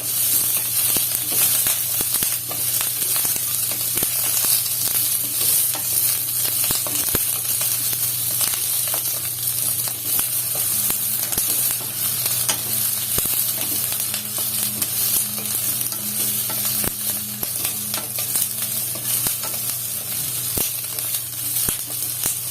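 Red chilli peppers and garlic sizzling as they are sautéed in hot sesame oil, a steady hiss scattered with small crackling pops. The pops come from moisture in the rainy-season peppers spitting in the oil.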